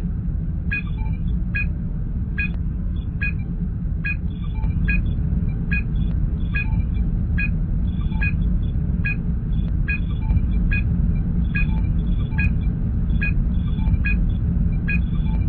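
Sci-fi starship bridge ambience: a steady low engine hum, with a short electronic scanning ping repeating about once every 0.8 seconds.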